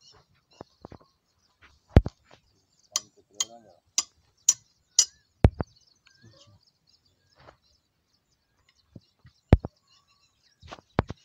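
Scattered knocks and a run of high metallic clinks around a stopped diesel engine, with birds chirping faintly. The engine itself is not running.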